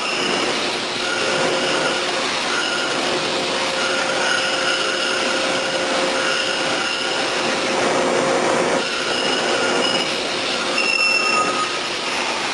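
Double-column CNC milling machine cutting metal: a steady, loud, grinding noise with shrill metallic squealing tones that come and go.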